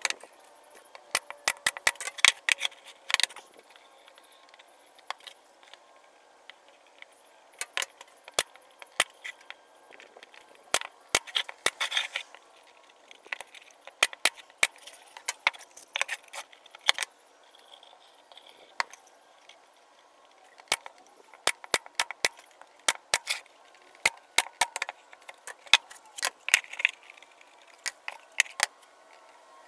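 Pneumatic brad nailer firing into the wooden panels of a birdhouse box, a sharp snap with each shot. The shots come in quick runs of several, with pauses between the runs.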